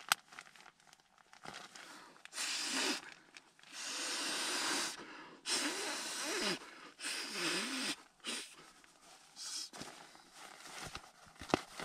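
Inflatable camping pillow being blown up by mouth: several long puffs of breath into its valve, each about a second, with short pauses between them.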